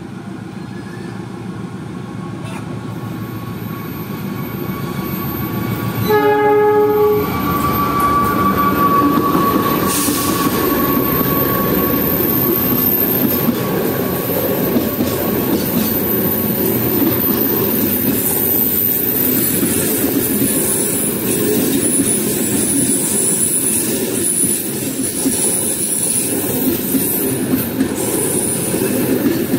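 A long-distance passenger train approaches, growing louder, and sounds one short horn blast about six seconds in. It then passes with a loud, steady rumble of wheels on rails and a thin high-pitched wheel squeal.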